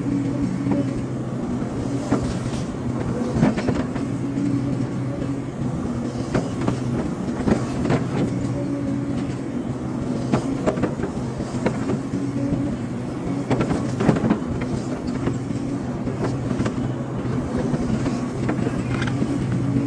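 Hydraulic excavator's diesel engine running steadily, its note shifting up and down, with irregular knocks and clanks scattered throughout.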